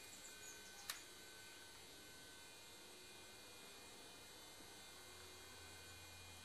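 Near silence with a faint steady hum, broken by a single sharp click about a second in.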